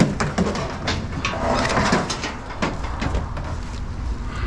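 Scrap being handled and loaded: a string of sharp knocks and clatters, with a scraping rush about two seconds in.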